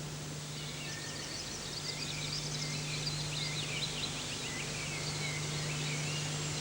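Small songbirds chirping and singing in quick, varied, gliding phrases, starting about half a second in, over a steady low hum.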